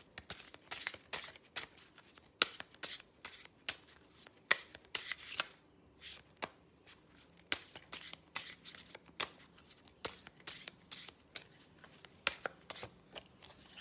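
A deck of oracle cards being shuffled by hand: an irregular run of crisp card snaps and riffling rustles, several a second, with a brief pause about halfway through.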